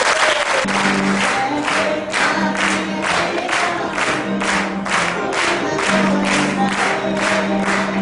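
A crowd singing together and clapping hands in rhythm, about three claps a second, over held musical notes.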